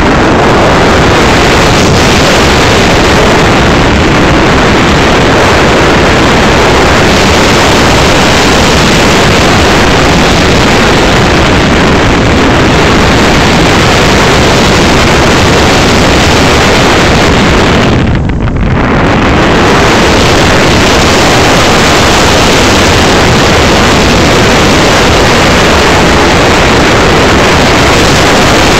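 RC SU-25 model jet in flight, heard from a camera riding in its canopy: a loud, even rush of airflow and motor noise, dropping briefly about two-thirds of the way in.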